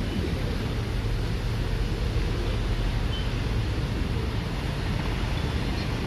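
Steady low engine rumble, even in level throughout, with a hiss above it.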